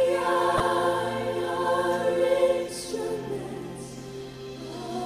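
Background choral music: voices holding long sustained chords, loud at first and softening about three seconds in.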